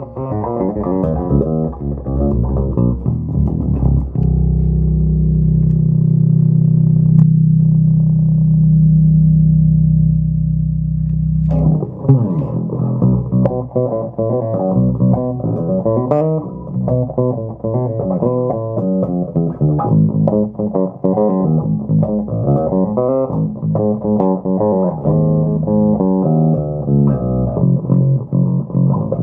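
Electric bass played through a Phil Jones Bass Briefcase combo amplifier. A run of quick notes gives way to a low note held ringing for several seconds, and fast, busy playing starts again about twelve seconds in.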